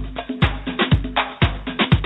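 Music with a steady kick-drum beat, about two beats a second, and busy percussion.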